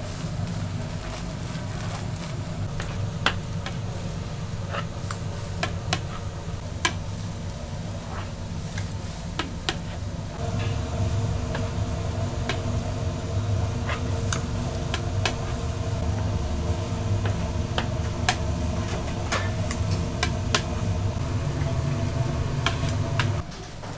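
A motor-driven machine running with a steady hum, with frequent sharp clicks and knocks over it; it gets louder about ten seconds in and stops shortly before the end.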